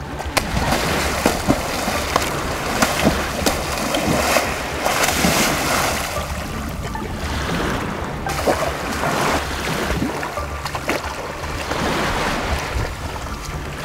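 Sea waves washing up on a beach, a rushing noise that swells and eases several times, with wind rumbling on the microphone.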